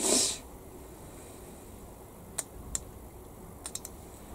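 A short rushing scrape or rustle right at the start, then light clicks and ticks of a hobby knife and a small plastic model part being handled: two single clicks, then three quick ticks together near the end.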